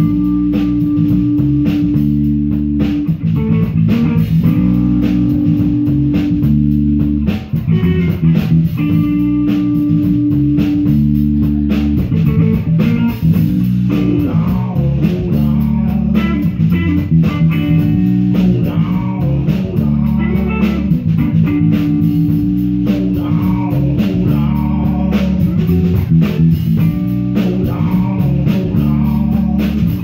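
Live band playing an instrumental groove: electric guitar and bass guitar over a drum kit keeping a steady beat.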